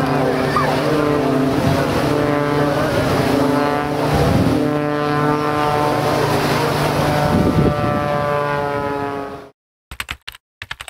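Extra 300 LP aerobatic plane's six-cylinder Lycoming engine and propeller droning in flight, the pitch shifting slightly as it moves. The sound cuts off abruptly about nine and a half seconds in, followed by a few brief crackles.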